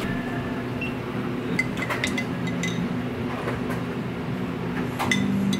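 A metal spoon clinking against glass as passionfruit syrup is spooned from a glass jar into a glass mug. There is a quick run of light clinks between about one and a half and three seconds in, and two more near the end, over a steady low hum.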